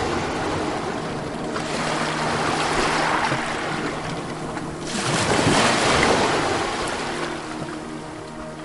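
Ocean surf: waves breaking and washing in, swelling about three seconds in and again more loudly around five to six seconds, then ebbing.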